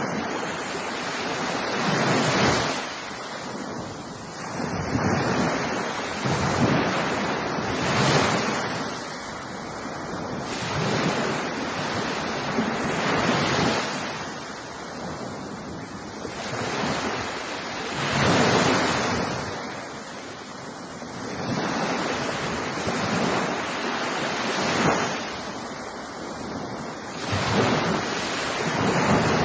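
Ocean surf: waves breaking and washing in a continuous hiss that swells and recedes every two to three seconds.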